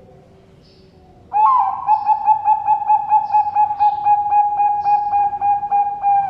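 Zebra dove (Bangkok perkutut) singing: a long rolling run of rapid coos on one steady pitch, about five a second. It starts about a second in and lasts about five seconds.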